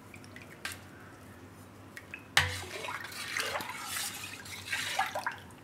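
A metal spoon stirring a thin batter of buttermilk and gram flour in a steel bowl. It starts with a sharp clink about two and a half seconds in, then liquid sloshes and the spoon scrapes and clinks against the bowl.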